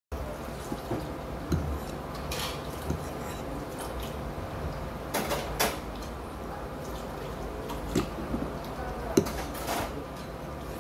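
Metal spoon clinking and scraping against a bowl as cake is scooped up, a handful of sharp clinks scattered through over a steady low room hum.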